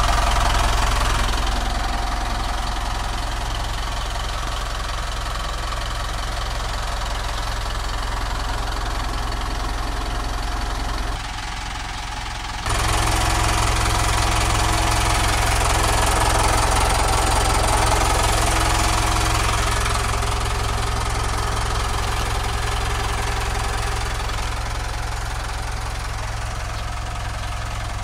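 Mitsubishi Montero Sport's 2.5-litre turbodiesel idling steadily. It drops briefly about eleven seconds in, then comes back louder.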